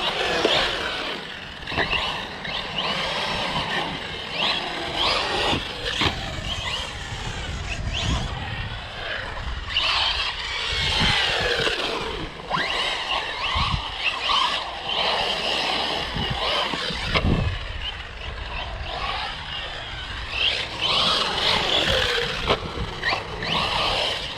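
Electric RC car's motor whining up and down in pitch as it speeds up and slows, with tyre noise and a few low thumps.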